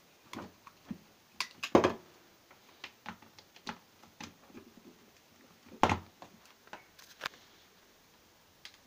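Scattered clicks and knocks of a plug, plug adapter and cable being handled and pushed into a power strip socket, the loudest about two seconds in and again about six seconds in.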